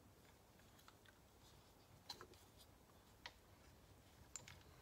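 Near silence with faint clicks of small metal and plastic parts handled while a carburettor is fitted onto a Stihl TS350 engine. There are three sharper clicks, about a second apart, in the second half.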